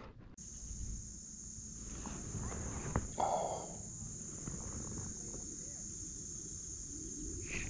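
Steady high-pitched insect buzz in the summer trees around the pond, with a low rumble beneath. A short click and a brief rustle come about three seconds in.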